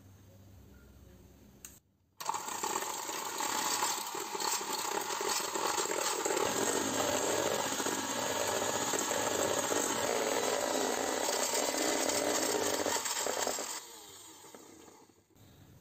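Cosmos electric hand mixer running at a steady speed, its wire beaters whipping eggs and sugar in a stainless steel bowl until pale and thick. It starts about two seconds in and stops about two seconds before the end.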